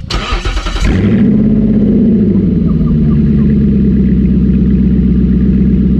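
Nissan Patrol Y62's 5.6-litre V8 catching and flaring as it starts, then settling into a loud, steady idle about a second in, run with the exhaust system removed.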